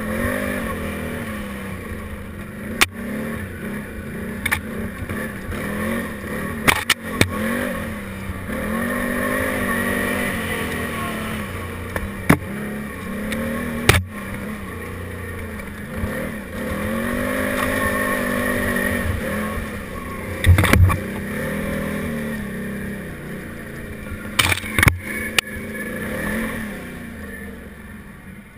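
Can-Am Renegade 800 ATV's V-twin engine revving up and falling back again and again as it is ridden over a rough trail, with several sharp knocks along the way. The engine eases off near the end.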